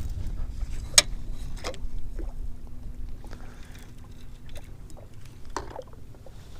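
Small fishing boat sitting on the water: a low rumble of wind and water against the hull, with scattered clicks and knocks, one sharp click about a second in, and a faint steady hum for a few seconds in the middle.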